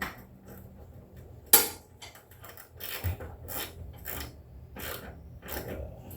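Hand tools working on metal parts: a string of irregular clicks and clinks, with one sharp clank about a second and a half in.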